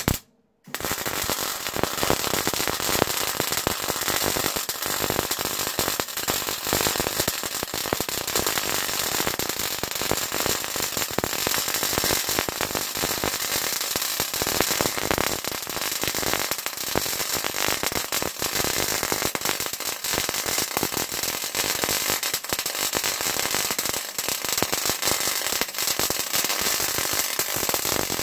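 Wire-feed (MIG) welding arc crackling steadily as a bead is laid on a lock part. A brief burst at the start breaks off for about half a second before the arc runs on without a pause.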